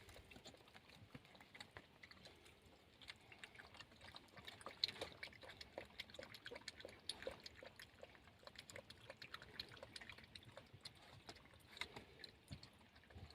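Faint, irregular small clicks and wet ticks, the loudest about five seconds in.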